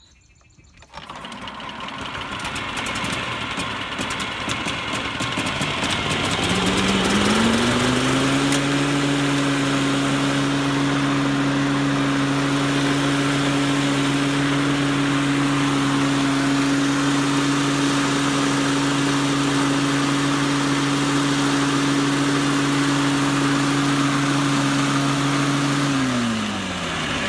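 Exmark 30-inch commercial walk-behind mower engine starting about a second in and building up speed over several seconds with the blade engaged, then running steadily at one pitch until it is shut off and winds down near the end. The blade spins as soon as the engine starts because the broken engagement cable is tied in place, which the owner thinks puts extra tension on the belts.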